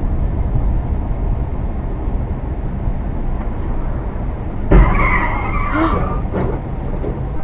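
Steady road and engine rumble inside a moving car, then about two-thirds of the way in the sudden bang of a two-car collision at an intersection, followed by about a second of high screeching as one SUV is tipped over onto its side.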